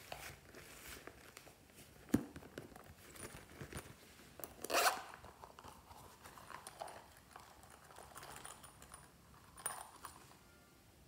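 Rubbery zippered coin purse being handled: a sharp click about two seconds in, then its zipper pulled open in one quick run near the middle, the loudest sound, with soft rustles and light clicks as pieces are taken out.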